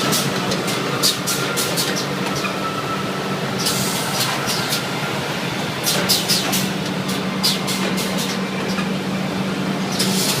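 QFM 600C automatic hard-cover bookbinding machine running: a steady motor hum, stronger in the second half, with frequent sharp clicks and clacks from its moving parts.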